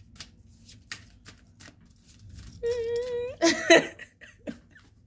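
A woman holds a single wavering vocal note for under a second, then bursts into a short laugh. Before that, faint light clicks of the tarot cards being handled.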